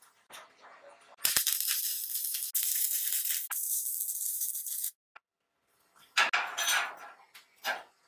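Electric arc welding on the steel lid of an oil drum: a steady crackling sizzle that starts about a second in and stops sharply near five seconds. A few sharp metal knocks follow near the end.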